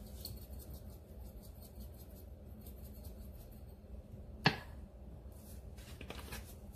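Quiet kitchen handling sounds while a pan of sauce is seasoned: faint light ticking over a low steady hum, then one sharp click about four and a half seconds in.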